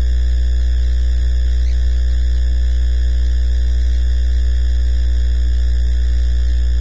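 Loud, steady electrical mains hum, low and unchanging, with fainter steady buzzing tones above it.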